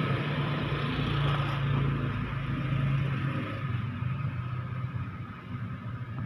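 Suzuki New Carry pickup's engine running at a steady low drone, with a haze of road and wind noise that thins out about halfway through.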